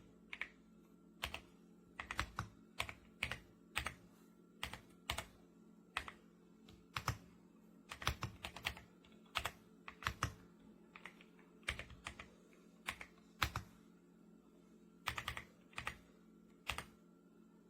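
Typing on an RK Royal Kludge R75 gasket-mounted mechanical keyboard: irregular keystrokes, one to three a second, some in quick pairs.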